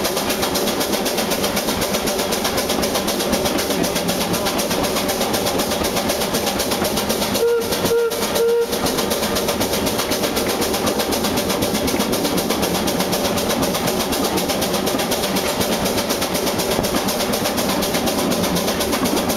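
Steady rattling run of a two-foot-gauge steam train on its rails, with three short toots of the 1904 Vulcan steam locomotive's whistle about eight seconds in.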